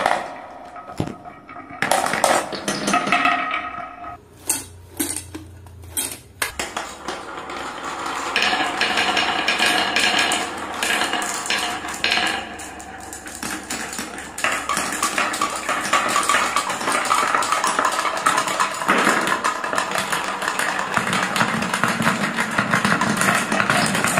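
Many glass marbles rolling and clattering down a wooden and plastic marble run, clicking against each other and against the wooden tracks and bowls. A few separate clicks at first, then a thick, continuous rattle from about a third of the way in.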